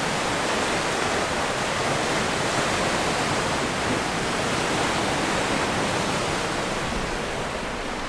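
Sea surf making a steady rushing wash, easing slightly near the end.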